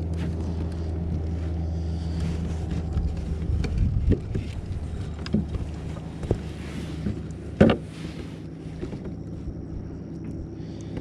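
A boat motor hums steadily, weakening after about four seconds. Scattered knocks and taps run through, with one sharp loud knock about two-thirds of the way in.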